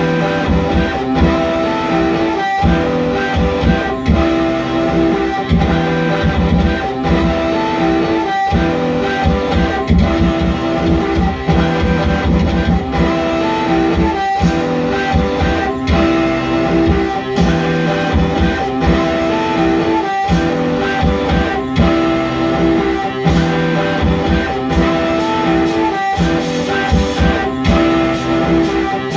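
Live electric guitar music, with sustained notes in a phrase that repeats every couple of seconds over regular percussive hits.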